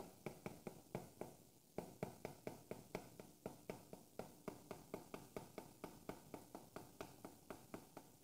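Chalk tapping and scraping on a chalkboard as it writes: a fast, even run of faint taps, about five a second, with a short pause about one and a half seconds in.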